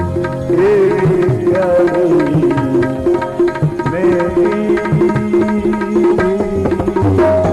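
Instrumental interlude of a devotional bhajan: tabla strokes keeping a steady rhythm under a sustained, wavering melody line.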